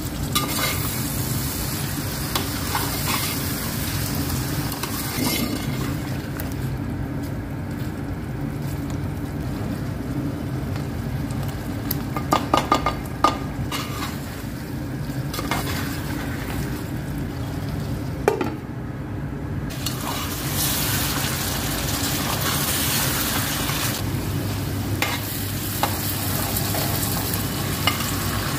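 Chicken and spice masala frying in oil in a metal pot while a metal slotted spoon stirs it, with a steady sizzle. The sizzle thins out for a stretch in the middle, where a few sharp clinks of the spoon on the pot come through, then returns strongly as the masala cooks down.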